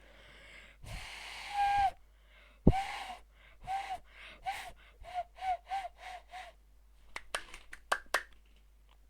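Cupped-hands whistle blown through the thumbs: a breathy rush of air that catches into a low hooting note, then a run of about eight short hoots, each bending slightly up and down in pitch. A few sharp clicks follow near the end.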